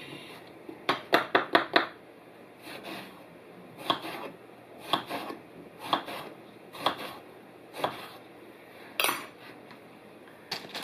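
Kitchen knife chopping eggplant, the blade knocking on a plastic cutting board: a quick run of about six chops about a second in, then single chops about once a second.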